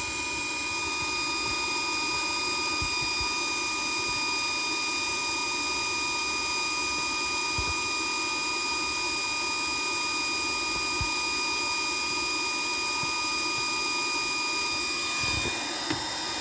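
Handheld induction bolt heater running, a steady fan noise with several high, constant whining tones, as it heats a broken exhaust-manifold stud in the cylinder head. It stops shortly before the end.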